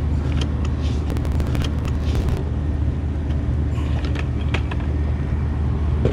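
Steady low machinery hum on a rooftop, with plastic clicks and rattles from a bucket-lid tool organizer being handled. A quick run of ratcheting clicks comes about a second in, and a few single clicks follow around four seconds in.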